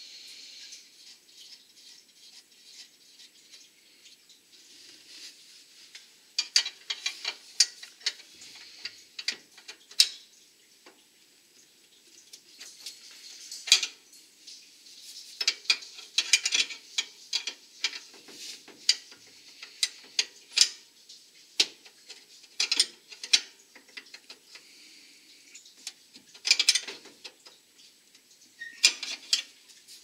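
A wrench working the brass nut on an oil burner's fuel line fitting as the line is tightened back up. It makes short runs of quick metallic clicks and clinks, on and off.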